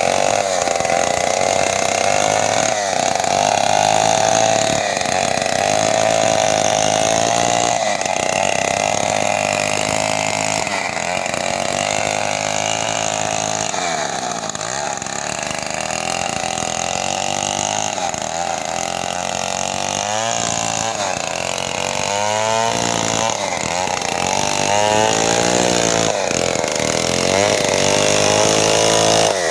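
Chainsaw engine running hard, cutting wood, its pitch sagging and recovering under load. In the later part the engine speed rises and falls several times in quick succession.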